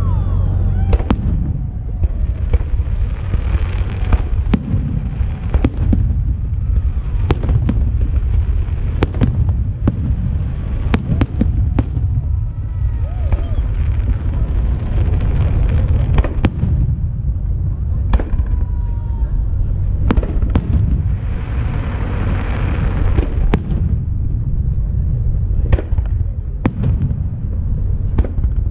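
Aerial fireworks shells bursting overhead: an irregular run of sharp bangs and booms, about one a second, over a continuous low rumble.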